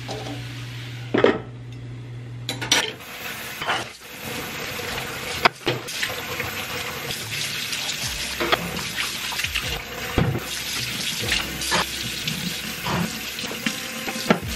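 Kitchen faucet running into a stainless steel sink while dishes are washed by hand, with repeated knocks and clinks of a bowl and a glass against the sink. The first three seconds hold a low steady hum and one sharp knock before the water starts.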